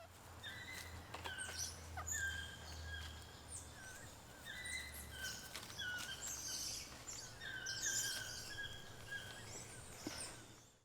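Several birds chirping and calling in short, repeated notes over a low steady hum, cutting off suddenly at the end.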